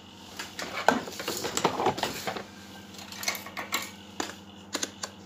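Irregular clicks and clatter of a digital multimeter and its test leads being picked up and handled on a hard workbench, the sharpest knock about a second in.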